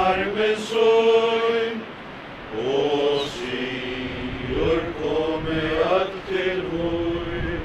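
A group of mourners singing a hymn together in slow, long-held notes, with a brief breath between lines about two seconds in.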